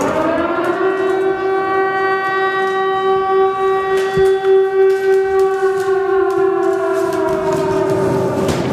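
Air-raid siren sound effect, rising in pitch over the first second and then holding one steady wail, its upper tones thinning near the end.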